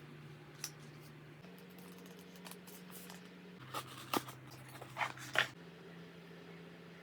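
Paper and plastic collage materials being handled, with a few short rustles and crinkles, most of them clustered about two thirds of the way in.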